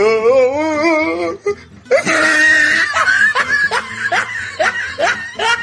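A wavering, drawn-out voice-like tone lasting about a second and a half, then a run of loud laughter in quick rising bursts.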